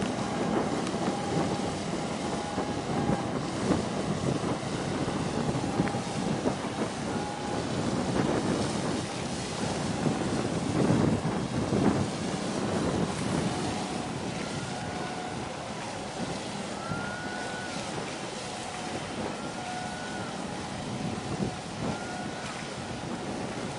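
Wind buffeting the microphone over a dense rush of water and low noise from a large container ship passing close by, loudest about halfway through. In the second half a faint high chirp repeats every couple of seconds.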